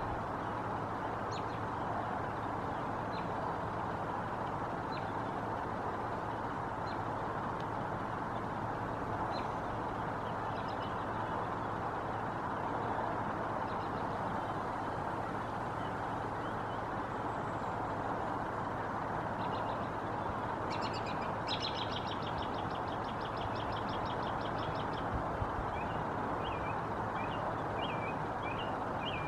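Steady low background rumble of outdoor noise, with small songbirds chirping faintly here and there. About 21 seconds in a songbird gives a rapid, even trill lasting three or four seconds, and more chirps follow near the end.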